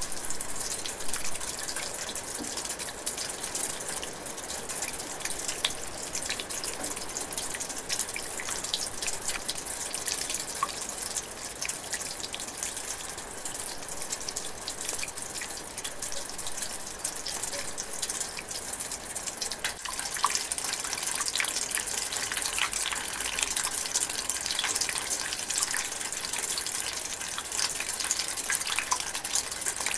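Light rain drizzling and dripping in a forest: a steady hiss thick with small, close drops.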